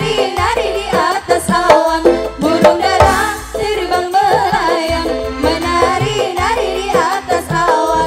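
Live qasidah band music: a wavering lead melody with vibrato over keyboard and a steady hand-drum beat.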